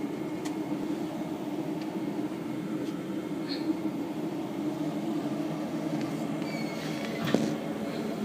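A steady, unchanging mechanical drone, such as a motor or engine running, with a few faint clicks over it.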